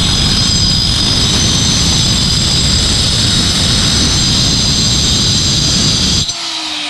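Electric cutting machine fitted with a tile-cutting blade, cutting through a steel reinforcing rod: a loud, steady grinding rush with high whining tones. About six seconds in the cut stops and the motor winds down with a falling whine.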